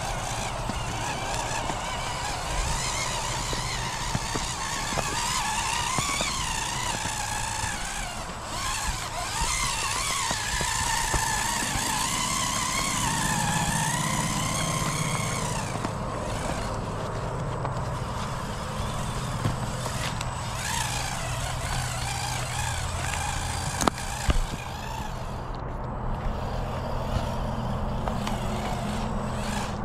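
Electric drive motor and gears of an RC4WD Bully 2 radio-controlled rock crawler whining, the pitch rising and falling with the throttle as it crawls over snow and rocks; the whine fades about halfway through.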